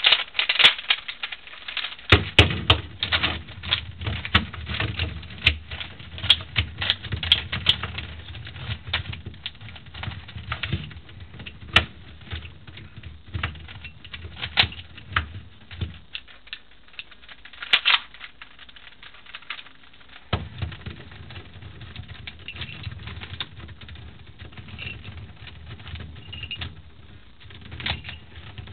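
Plastic layers of a homemade 3x5x7 twisty puzzle clicking and clacking as they are turned by hand, in quick irregular runs of turns. A low rumble comes and goes underneath.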